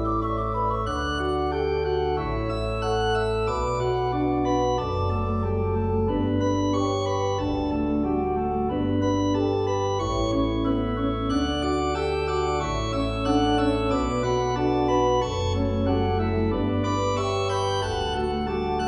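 Instrumental background music: sustained keyboard chords over a bass line that changes note every second or so.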